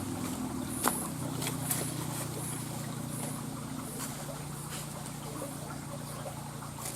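Steady low motor hum, with a single sharp click about a second in.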